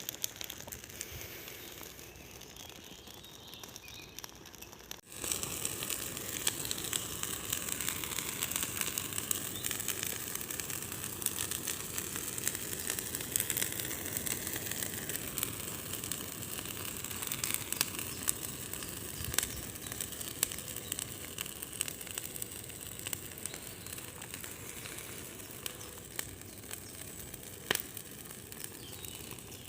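Large bonfire burning, a steady hissing rush of flame with sharp crackles and pops scattered through it. The sound breaks off briefly about five seconds in and comes back louder.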